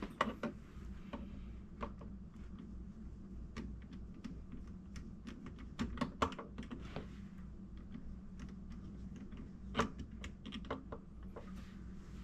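Scattered light clicks and taps, irregular and a few per second, from a tool and plumbing fittings being handled while a drain connection under a sink is tightened, over a faint steady low hum.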